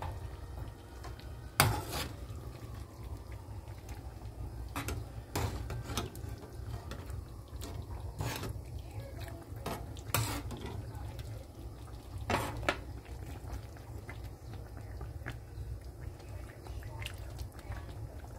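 A metal spoon basting stewed chicken in a frying pan, knocking and scraping against the pan now and then, the loudest knock about one and a half seconds in, over a steady low hum.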